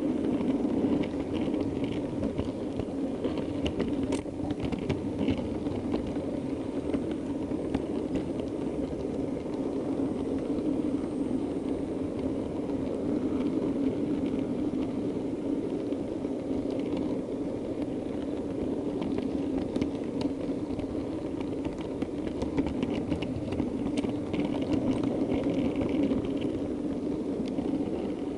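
Model train running steadily along the track, a continuous low rumble and whir of its motor and wheels with occasional light clicks, heard from on board.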